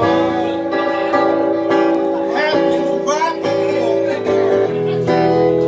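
Music led by guitar, with sustained notes over a steady low bass line.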